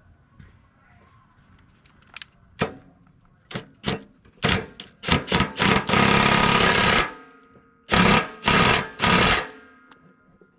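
Cordless DeWalt 3/8-inch stubby impact wrench hammering a nut tight on a mower-deck spindle. It runs in short bursts of varying length, with one longer run of about a second in the middle and three quick bursts near the end.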